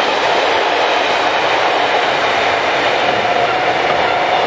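Class 363 electric locomotive passing, followed by its container wagons rolling by: a steady rush of wheels on rail with a faint clickety-clack and a thin steady tone above it.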